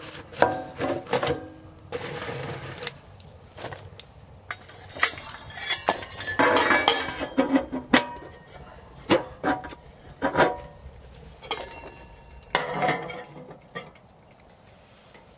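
Stainless-steel wood-burning tent stove being loaded and closed: clinks and knocks of wood against the firebox and the round door, scraping as the door is pushed shut, and metal clicks as the air-vent tube is turned, dying away near the end.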